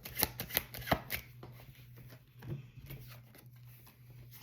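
Tarot cards being shuffled and handled: a quick run of sharp card snaps and taps in the first second or so, then fainter scattered flicks, over a faint steady low hum.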